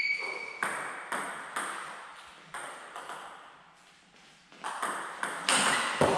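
Table tennis ball clicking: a few bounces about half a second apart, a pause, then a quick run of bat strikes and table bounces in a rally from about four and a half seconds in.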